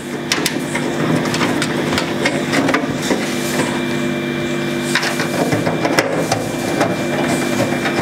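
Clicks and knocks from handling a desktop PC cabinet, over a steady low hum.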